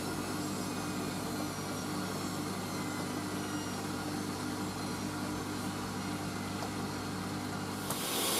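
Hoover AAA160 Whisper 1600 washing machine running with a steady low hum. Near the end, a hiss of water starts as it begins filling for the final rinse.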